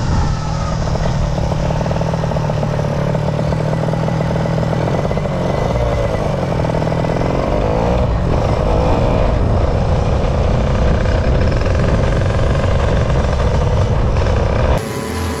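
Racing motorcycle engine at high revs, heard from a camera mounted on the bike, with the engine pitch rising and falling as it is ridden and a rushing noise over it. It cuts off abruptly near the end.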